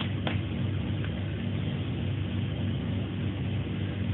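A steady low mechanical hum with an even background noise, and two brief clicks within the first half-second.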